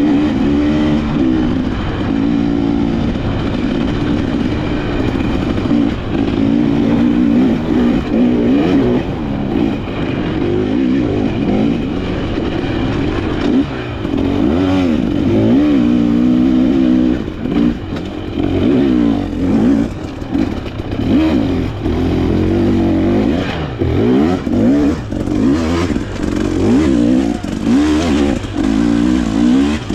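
Off-road dirt bike engine being ridden hard, its pitch rising and falling steadily with the throttle. In the second half the loudness dips and swells more often, with short knocks from the bike over rough ground.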